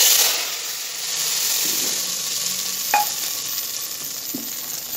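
Hot tadka oil poured into a pot of haleem hits with a sudden loud sizzle, then settles into a steady hiss as it is stirred in with a wooden spoon. One sharp knock comes about three seconds in.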